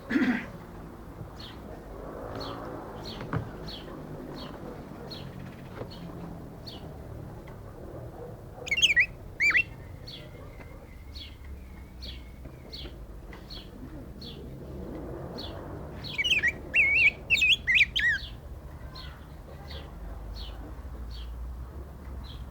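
Black-backed grosbeak (rey del bosque) singing two loud warbled phrases, one about nine seconds in and a longer one around sixteen to eighteen seconds in. Between and under them, short high chirps repeat about twice a second.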